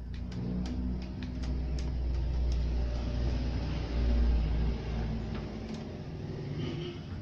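Low engine-like rumble that swells to a peak about four seconds in and then fades, with a run of light clicks and taps in the first two and a half seconds.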